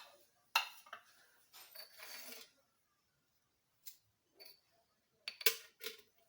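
Kitchen utensils and dishes being handled: several light clinks and knocks, with a short scraping sound about two seconds in.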